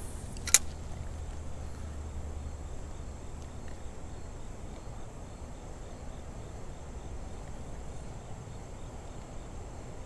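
A single sharp click about half a second in, the bail of a spinning reel snapping shut after a cast, then a quiet steady background with faint insects chirring.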